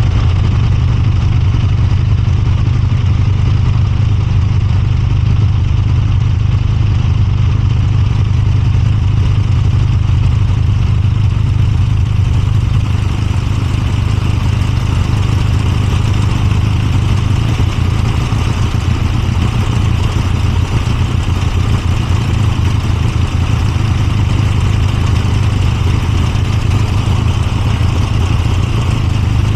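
Moto Guzzi V85TT's air-cooled transverse V-twin engine running at an even, steady pace, with a strong low exhaust note.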